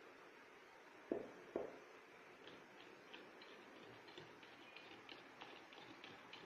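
Two light knocks as a small glass bowl is tapped to shake out baking powder, then a wire whisk beating cake batter in a mixing bowl, its wires ticking faintly against the bowl about three times a second.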